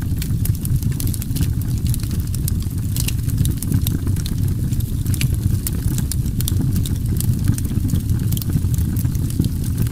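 Steady low rumble with frequent sharp, irregular crackles and pops.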